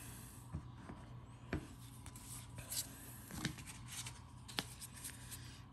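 Faint handling of a stack of baseball trading cards: the cards rub and slide against each other and are set down on the table, with a few light clicks about once a second.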